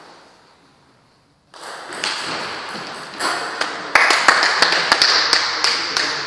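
Table tennis ball ticks during a short rally, then, about four seconds in, a louder stretch of noise with many sharp, irregular knocks once the point is over.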